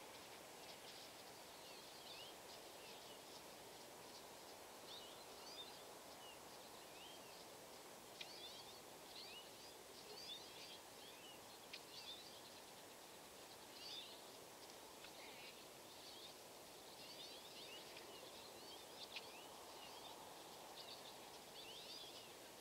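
Quiet outdoor ambience in a snowy field: a faint steady hum with short, high-pitched chirps or squeaks dotted through it about once a second.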